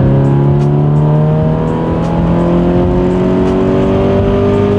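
Subaru BRZ's 2.0-litre flat-four boxer engine accelerating hard on an E85 tune, its pitch rising steadily through one gear, heard from inside the cabin.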